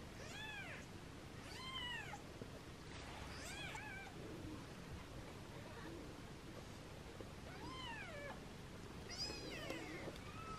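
Newborn British Shorthair kittens mewing: about six high cries that rise and fall in pitch, spaced out, with a pause of a few seconds in the middle. These are the hungry calls of unweaned kittens at bottle-feeding time.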